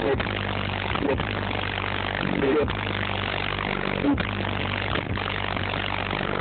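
Bass-heavy music played loud through two subwoofers in the back of a Ford Explorer: a steady deep bass note broken by a short gap about once a second, with a harsh, overdriven haze over it.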